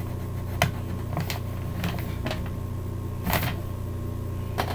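Scattered light clicks and taps from coloring a drawing by hand at a desk, irregular and a few per second at most, over a steady low electrical hum.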